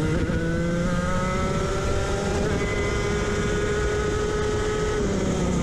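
Racing kart's engine at high revs, heard from on board the kart: its pitch climbs slowly, holds steady, then drops a step about five seconds in.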